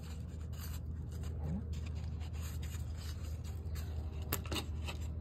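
Rustling and scraping as a gloved hand handles a plastic seedling pot over potting soil, in short irregular strokes with a sharper click about four seconds in, over a steady low hum.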